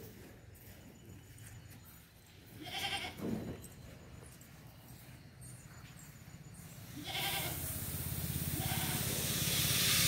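Goat bleating, a short call about three seconds in and another about seven seconds in. Then parboiled paddy is poured from a steel basin onto the drying heap, a rush of grain that grows and is loudest at the end.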